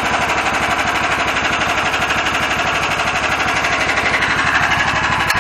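Homemade go-kart's single-cylinder engine running steadily at idle, an even stream of firing pulses, with an exhaust note the builder finds weak.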